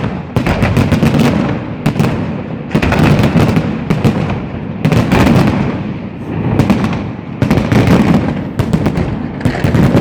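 Fireworks display going off: a dense run of shell launches and bursting bangs in quick clusters, with rolling rumble between them.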